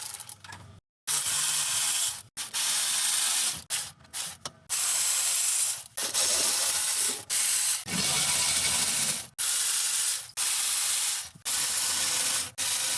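Powered ratchet run in repeated bursts of about one to two seconds, with short pauses between trigger pulls, spinning out exhaust manifold bolts on a 5.7L HEMI that have already been broken loose by hand.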